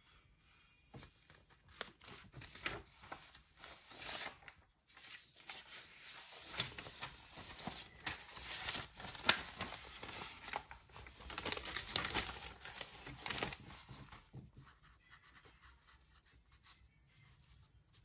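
Paper rustling and crinkling as pages are handled, in irregular bursts with sharp clicks, from about a second in until about fourteen seconds in.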